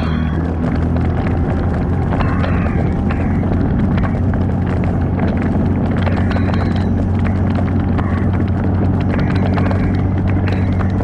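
Off-road vehicle's engine running steadily at low speed on a trail, with frequent short clicks and knocks throughout.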